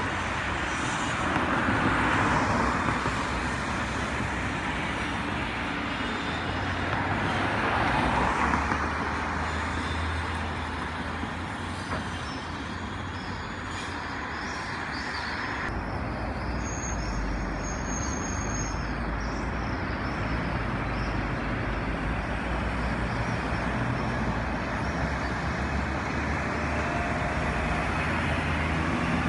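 City street traffic: cars driving past on the road, with a steady engine hum and tyre noise that swells as vehicles pass close, about two and eight seconds in.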